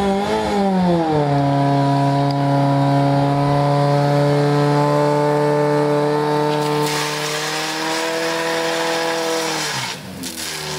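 Fire pump's petrol engine held at high revs at a steady high pitch, then dropping sharply near the end and picking up again. A rushing hiss joins for a few seconds about two-thirds through.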